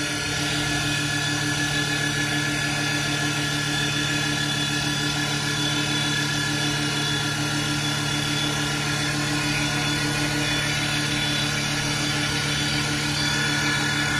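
CNC wood lathe running while turning a wooden column: a steady hum and whine from its motors and spindle over the noise of the cutting, with no break or change.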